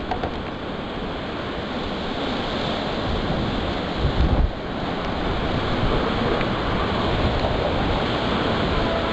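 Severe thunderstorm wind and wind-driven rain blowing steadily, with a heavier low gust buffeting about four seconds in.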